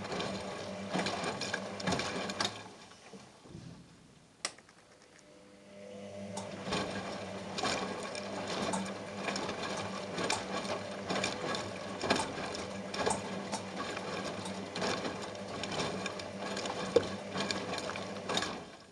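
Front-loading washing machine on a wash tumble, drum motor humming while a soaked plush toy and water slosh and drop inside the turning drum. The drum stops about three seconds in, with one sharp click during the pause, then starts turning again about six seconds in.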